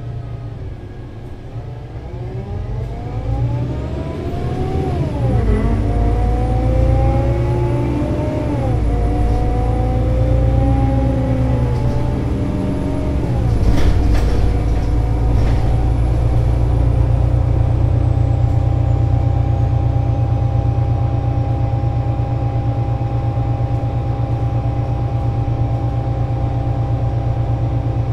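Solaris Urbino 18 IV articulated bus's DAF diesel engine and Voith Diwa 6 automatic gearbox pulling away and accelerating. The pitch climbs and drops at three upshifts, about 5, 9 and 13 seconds in, then the bus settles into a steady cruise with an even drone.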